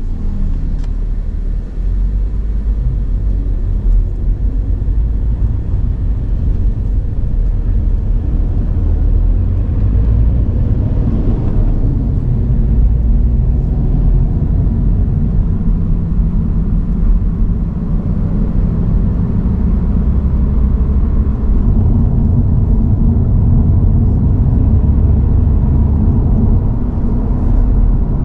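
Toyota GR86 being driven at a steady pace: a continuous low rumble of its 2.4-litre flat-four engine mixed with road and tyre noise, with no sharp revving.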